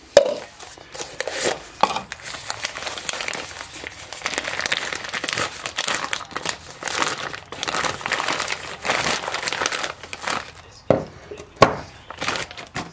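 Clear plastic bag crinkling and rustling as it is handled and pulled open around a metal part. A few sharp knocks come through it, the loudest near the end.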